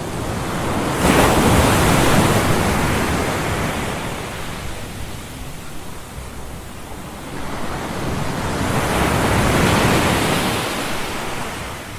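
Ocean surf washing ashore in two swells. One wave surges in sharply about a second in and slowly fades; a second builds around the middle, peaks and fades near the end.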